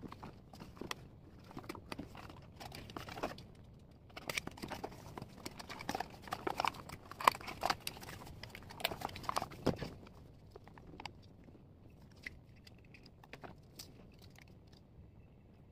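Cardboard shipping box being cut and pulled open by hand: irregular scraping, crinkling and tearing, busiest and loudest in the middle. It is followed by a few faint handling clicks near the end.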